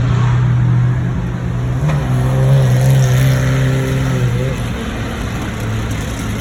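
Car engine running with a steady low drone, its pitch wavering a little in the middle.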